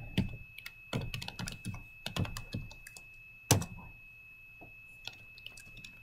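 Computer keyboard being typed on: quick, irregular key clicks with one louder click about halfway through, thinning out to a few scattered clicks near the end.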